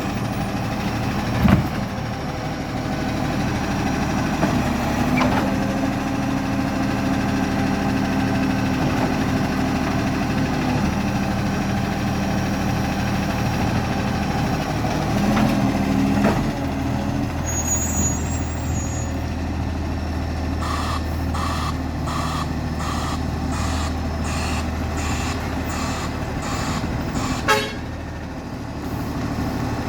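Garbage truck's diesel engine running steadily on its collection round, with the very bad exhaust leak in its sound. A few knocks are heard, then a run of regular beeps at about one and a half a second, and a loud bang near the end.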